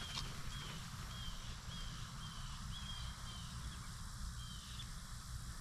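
A bird calling over and over, short high chirps about two a second, each dipping slightly in pitch, over a low steady rumble.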